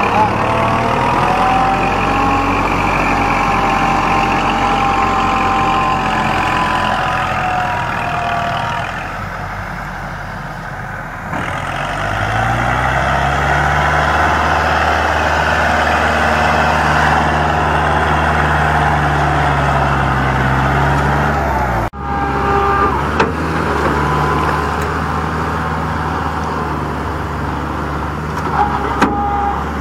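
Kubota MU4501 tractor's 45 hp diesel engine labouring under heavy load as the 4WD tractor struggles to drag a two-unit trolley through deep mud. About twelve seconds in the engine revs up and holds at a higher pitch. Near twenty-two seconds the sound breaks off abruptly and resumes.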